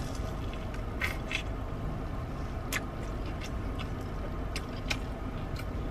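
Chewing a fried corn dog coated in crunchy potato cubes: scattered short crisp crunches and mouth clicks over a steady low background rumble.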